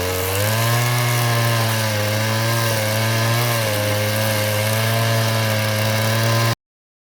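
Two-stroke Stihl chainsaw running under load, cutting wood. Its pitch dips at the start and briefly again a little past halfway, then the sound cuts off abruptly near the end.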